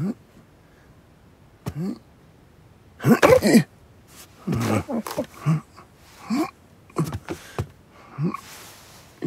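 Cartoon vocal sound effects: a string of short grunts, gasps and yelps, most falling in pitch, with a louder noisy outburst about three seconds in.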